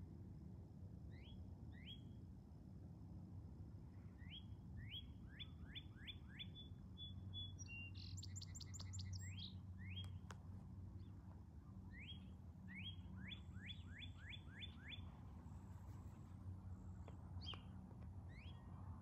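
Songbirds singing faintly: runs of short rising whistled notes that speed up into quick series, with a brief cluster of very high, thin notes about halfway through. A low steady rumble lies underneath.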